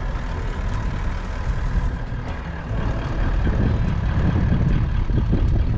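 Vehicle engine running with a low rumble, growing louder and rougher about three seconds in.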